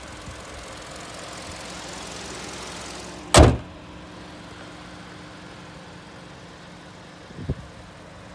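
2013 Hyundai Sonata (YF) engine idling, then the hood slammed shut about three seconds in with a single loud bang. The idle hum goes on, duller after the slam, with a lighter thump near the end.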